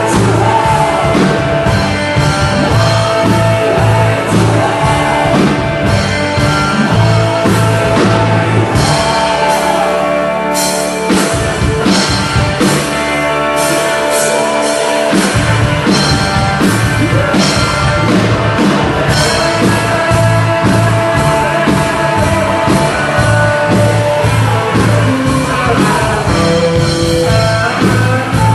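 A band playing rock music with a singer, guitar, bass and drums. The bass drops out for a few seconds about ten seconds in, then comes back.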